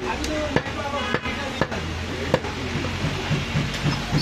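Heavy meat cleaver chopping mutton shoulder on a wooden log chopping block: sharp knocks about every half second for the first two and a half seconds, then fainter ones. Voices chatter in the background.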